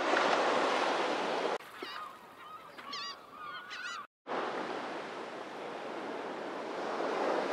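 Steady wind and surf hiss, broken by a cut to a quieter stretch of repeated short bird calls, then a brief dropout and the wind and surf hiss again.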